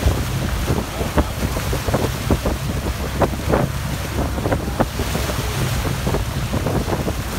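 Wind buffeting the microphone over the steady low rumble of a fishing boat's motor at trolling speed, with water splashing and slapping around the hull.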